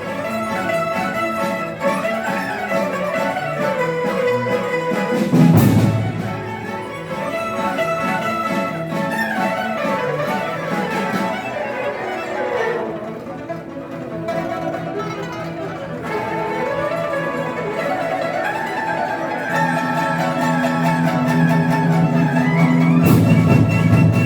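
Chinese traditional orchestra playing, a bowed-string melody rising and falling over sustained low notes. Strong accented hits come about five and a half seconds in and again near the end.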